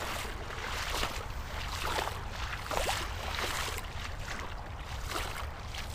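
Legs wading through a shallow, rocky creek riffle: irregular splashing and sloshing of water with each stride, over the steady run of the current and a low rumble underneath.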